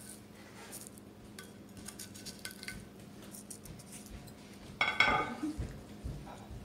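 A spoon stirring thick yogurt and spice paste in a ceramic bowl, with light taps and scrapes against the bowl's side and a louder run of scraping and clinking about five seconds in.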